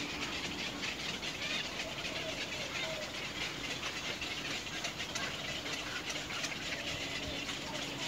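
Outdoor ambience: a steady high hiss with many faint ticks and small animal calls.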